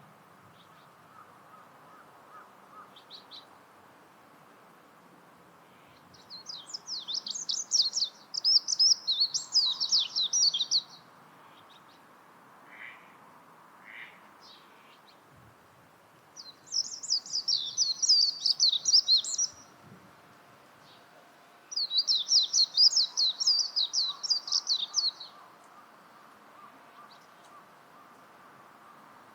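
Japanese white-eye singing: three long runs of rapid, high twittering song, each a few seconds long, with a few short call notes in between.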